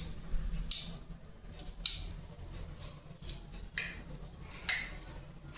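A clip being snapped shut again and again: several sharp clicks, irregularly spaced about a second apart.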